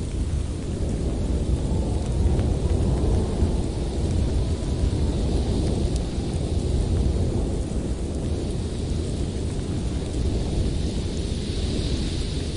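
Blizzard wind blowing hard in gusts, a deep steady rumble with a fainter high hiss that swells near the end.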